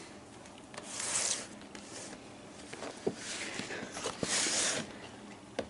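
Cardboard model-locomotive box being picked up and handled: three rustling, scraping swishes with a few light knocks.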